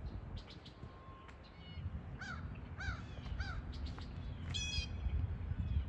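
A crow cawing three times in quick succession, then one higher, brighter call, over a low steady rumble.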